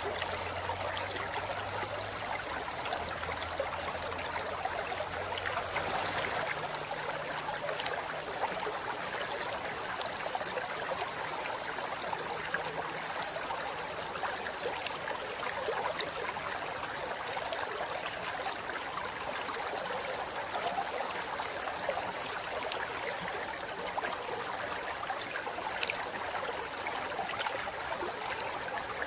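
Forest river flowing steadily over rocks, an even rushing and babbling of water.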